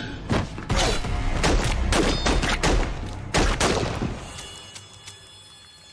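A rapid volley of about a dozen gunshots in film gunfire, over dramatic film score. The shots stop about four seconds in and the sound dies away.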